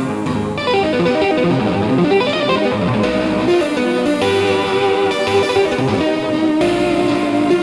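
Guitar music: a plucked electric guitar playing a run of quick single notes over a bass line.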